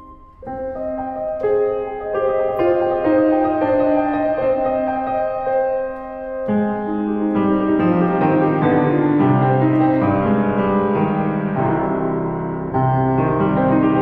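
Piano playing a classical passage: notes and chords enter about half a second in, and the texture grows fuller and lower from about halfway through.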